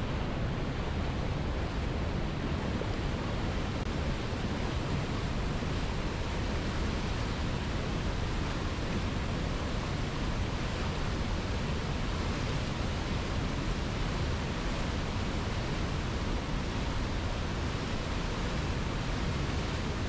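Big waterfall sound effect: a steady, unbroken rush of falling water, heaviest in the low end, artificially created or enhanced.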